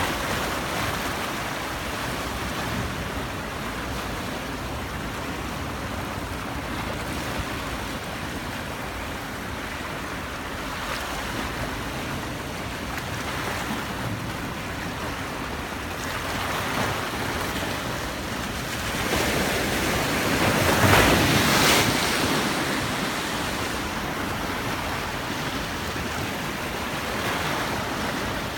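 Sea waves washing onto the shore in a steady rush. A bigger wave swells and breaks louder about three-quarters of the way through.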